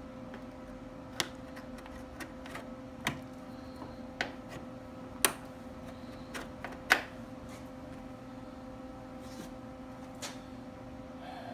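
A steady electrical hum runs throughout, with about ten sharp clicks and taps scattered through it; the loudest come about five and seven seconds in.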